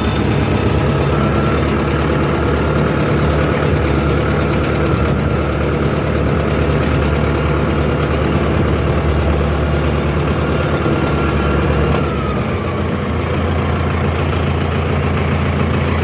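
Mahindra Arjun Novo 605 DI PP tractor's common-rail (CRDI) diesel engine running steadily. About twelve seconds in, a faint high whine slides down and stops, and the engine runs on a little quieter.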